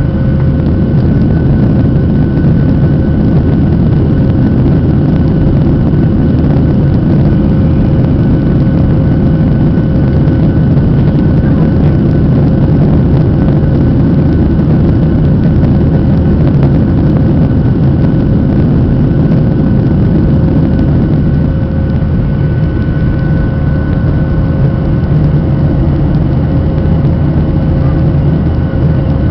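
Boeing 737-800's CFM56-7B turbofan engines heard from inside the cabin as the airliner climbs after takeoff: a steady low rumble with a few steady whining tones above it.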